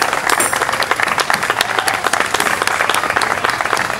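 Audience applauding: dense, steady clapping at the close of a wind band's piece.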